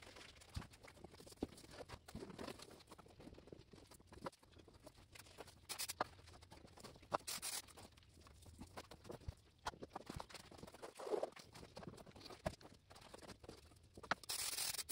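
Hands pressing and smoothing headliner fabric onto a glued headliner board: faint scattered pats, taps and rustles of the fabric, with a few short hissy swishes, the longest near the end.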